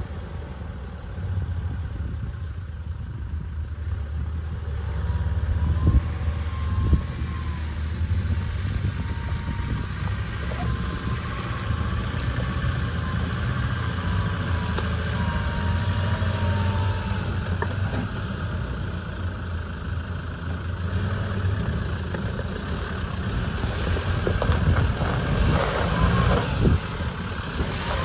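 Land Rover Defender's engine running at low revs as it crawls down a rocky, rutted lane. Near the end the engine gets louder and stones crunch and scrape under the tyres as the vehicle drops into a deep rut.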